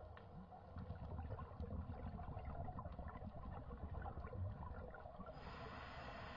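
Underwater ambience as picked up by a camera in its housing on a reef dive: a low, muffled rumble with scattered faint clicks and crackle.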